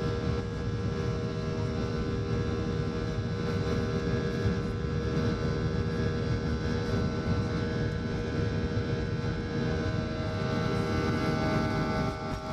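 Boeing 737-800 airliner's CFM56 jet engines running steadily, heard from inside the cabin, with a low rumble as the aircraft rolls along the runway. Several steady whining tones sit over the rumble.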